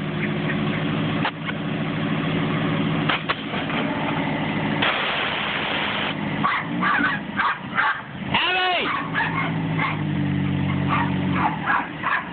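Mazda B2200's four-cylinder engine running steadily with its engine-driven York air compressor, and about five seconds in a second-long burst of air hiss from the air-bag suspension. Later a dog whines once and barks a few times.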